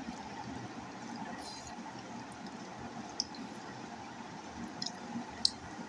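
Soft eating sounds: a hand mixing rice and curry on a plate, with a few small clicks, over a steady background hiss.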